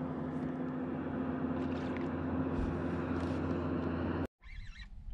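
Steady hum of a bass boat's motor under water and wind noise, which cuts off suddenly about four seconds in; then birds chirping in quick warbling trills.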